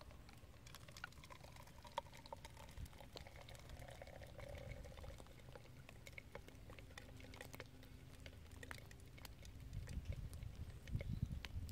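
Molten pine resin poured from an upturned tin into a sieve in a metal tube, with faint scattered small clicks and crackles. A low handling rumble grows a little louder near the end.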